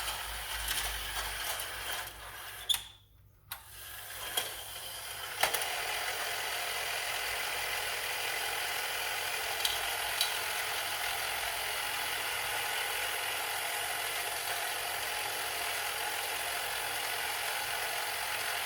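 Electric Tyco US1 Trucking slot-car truck running on its track, a steady whir of its small motor and gears. It starts about five seconds in, after a few clicks.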